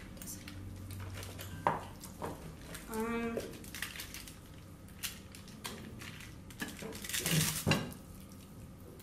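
Kitchen handling noises as raw chicken is seasoned by hand: scattered light knocks and clinks of containers and utensils on the counter, a short vocal sound about three seconds in, and a louder rustle near the end.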